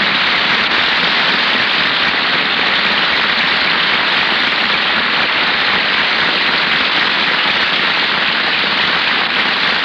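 Studio audience applauding, steady and even, on an old 1930s radio broadcast recording.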